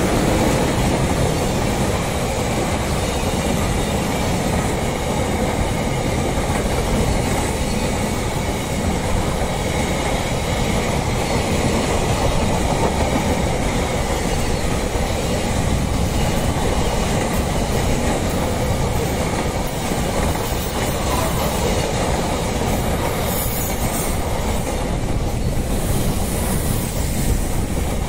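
Container freight train rolling past close by, its wagon wheels running steadily on the rails, with the end of the WAG-7 electric locomotive passing at the start.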